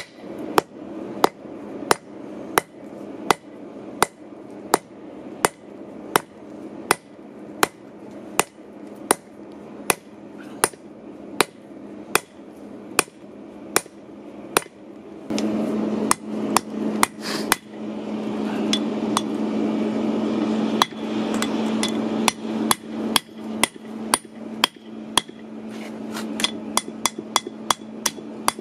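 Steady hammer blows on hot steel on an anvil, about three strikes every two seconds, each with a short ring, as a bolt head is forged flat into the blade of a hardy cut-off tool. About halfway through, a steady low hum comes in and the blows turn quicker and more uneven.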